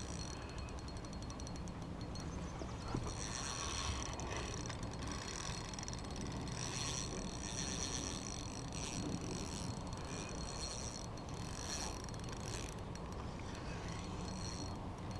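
Spinning reel ticking fast, its ratchet and gears clicking, while a big fish pulls on the line. The clicking grows stronger about three seconds in and eases off near the end.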